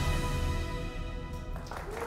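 Sustained music chords with a deep bass tone, dying away about a second and a half in. Audience applause starts near the end.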